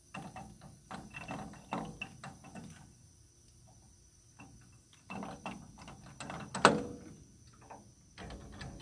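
Weinig ServoLock spindle wrench clicking and ratcheting as it is turned on a moulder's spindle nut to loosen and remove it: bursts of rapid clicks with short pauses between, and one sharp, louder click about three-quarters of the way through.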